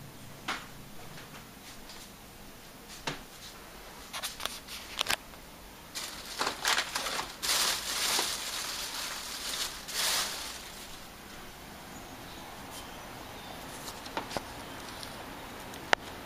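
Scratching, clicking and scraping at a screened window, with a louder stretch of scraping and rustling from about six to ten seconds in.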